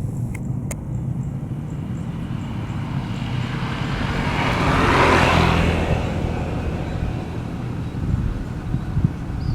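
A road vehicle driving past, its engine and tyre noise swelling to a peak about five seconds in and then fading away, over a steady low rumble.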